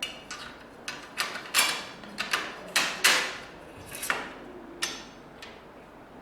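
Metal solar panel bracket rails knocking and clacking against each other as they are handled and fitted together, about a dozen irregular knocks with short ringing tails.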